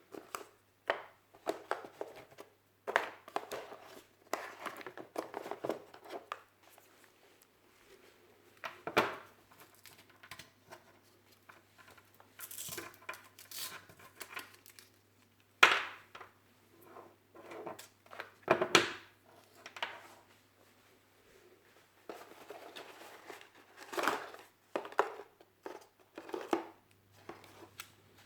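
Packaging of a drone unboxing being handled: rustling and crinkling with sharp clicks and knocks in irregular bursts.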